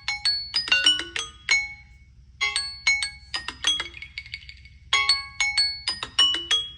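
Samsung smartphone alarm tone playing: a short melody of bright, chime-like mallet notes that repeats about every two and a half seconds.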